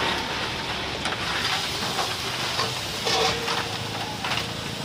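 Steady hiss from a bed of burning charcoal in a grill box as the coals are stirred, with a few short clinks and scrapes.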